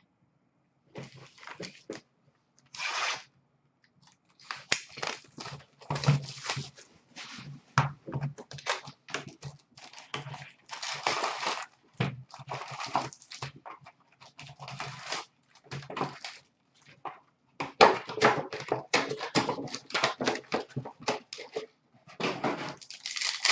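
Foil wrappers of 2019-20 Upper Deck hockey card packs being torn open and crumpled, crinkling in many short, irregular bursts.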